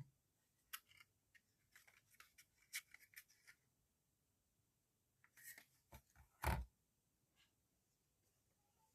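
Light clicks and rustles of small objects being handled, with one louder knock about six and a half seconds in.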